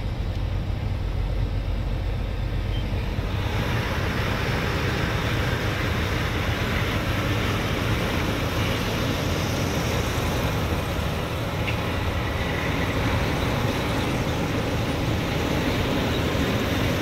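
Steady machinery noise from a truck and a tractor-drawn sugar beet harvester working side by side in a field, heard from inside the truck's cab. The noise gets brighter and fuller about three and a half seconds in.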